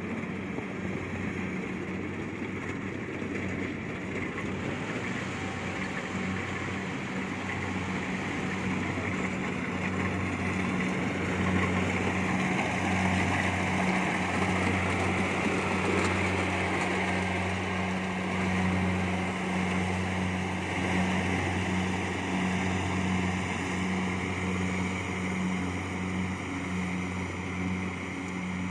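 Kubota DC70 Plus combine harvester running steadily as it cuts rice, a continuous low engine hum with the noise of the cutting and threshing gear over it, louder through the middle.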